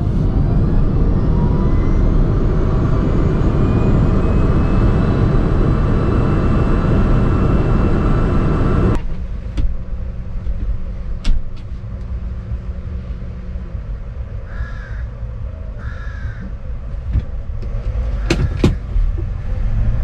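Citroen Ami electric quadricycle on the move, heard inside its cabin: a faint electric motor whine rising in pitch as it gathers speed, over heavy tyre and road rumble. This cuts off about nine seconds in, giving way to a quieter steady hum with a few sharp clicks and two short caws from a crow.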